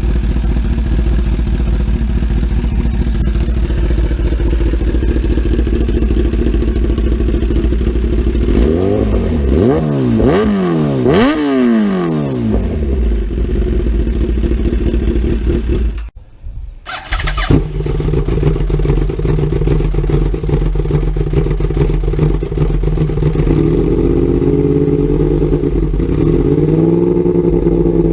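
A 2015 Kawasaki ZX-10R's flatplane inline-four, breathing through an SC Project exhaust, idling and then blipped up and down several times in quick succession about nine to thirteen seconds in. After a brief drop-out near the middle, a 2013 Yamaha R1's crossplane inline-four with a TOCE exhaust idles, rising gently a few times near the end.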